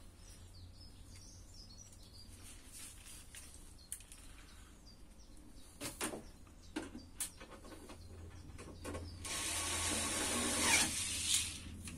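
Hands working on the sheet-metal housing of a Bauknecht appliance: scattered light clicks and knocks. Near the end comes a louder rushing scrape that lasts about a second and a half.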